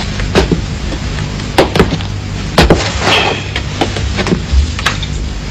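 Irregular sharp clicks and knocks, about eight of them with a short scrape a little past halfway, like small objects being handled, over a steady low hum.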